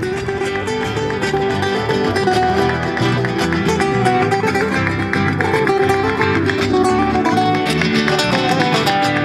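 Flamenco-style music on nylon-string acoustic guitars, quick strumming under a picked melody.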